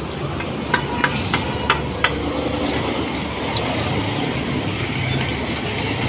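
Five quick sharp metallic taps, about three a second, from a hand tool striking the top of a small motorcycle engine during repair work.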